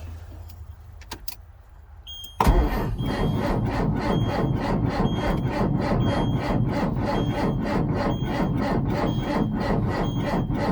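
Starter cranking the 1999 Ford F800's 8.3-litre diesel in a cold start at 17 degrees, an even rhythmic churn of about four compression strokes a second that never catches. It is a no-start after a month of sitting. The cranking begins suddenly about two seconds in, with a short high beep repeating over it.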